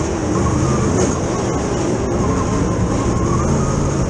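Dirt super late model race car's V8 engine running hard, heard from inside the cockpit, its revs rising and falling, with other race cars running close by.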